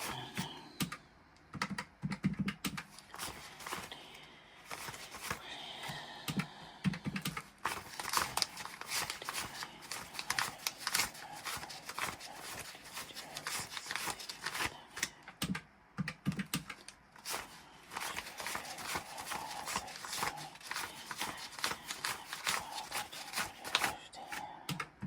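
Paper banknotes being flipped and handled one after another in a rapid, irregular run of crisp rustles and flicks as cash is recounted by hand, with a few faint murmurs of counting.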